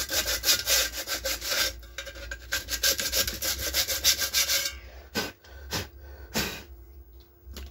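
Sandpaper rubbed rapidly back and forth over the rim of a 12-inch speaker's plastic frame, cleaning the gluing surface before the new surround is fitted. The fast strokes stop about five seconds in, followed by three single swipes.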